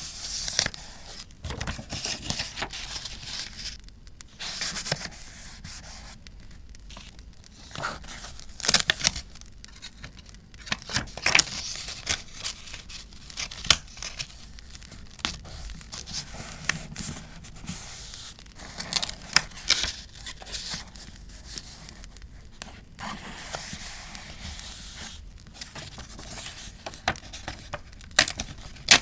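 Paper being handled for journaling: sheets torn, crinkled and rustled, with scissors snipping and small sharp taps at irregular moments.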